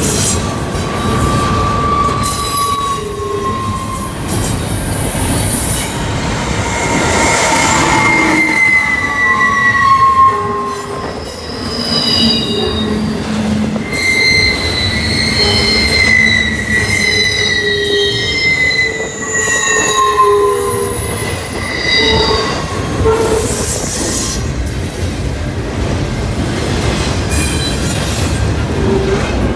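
Double-stack intermodal freight train's container well cars rolling past close by: a steady rumble of wheels on rail, with many brief high squeals from the wheels at shifting pitches throughout.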